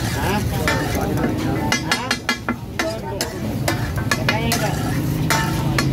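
A metal spatula clinking and scraping on a street-food griddle while patties are cooked, with a quick run of clinks about two seconds in, over background voices.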